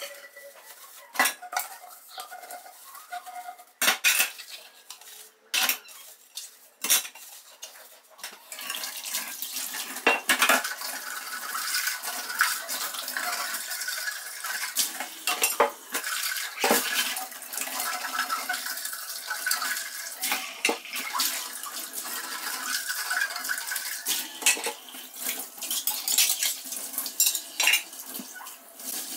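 Dishes being washed by hand at a stainless-steel sink: containers clink and knock as they are scrubbed. From about eight seconds in, the tap runs steadily as they are rinsed, with more clinks over the water.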